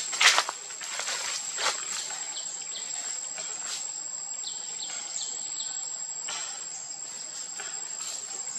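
Insects sounding a steady, high-pitched drone, with a loud sharp crackle just after the start and a smaller one at about two seconds.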